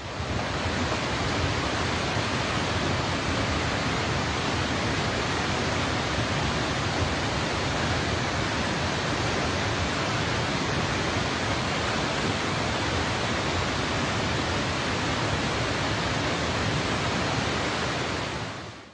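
A steady, even rushing noise, unchanging throughout, that cuts off sharply at the end.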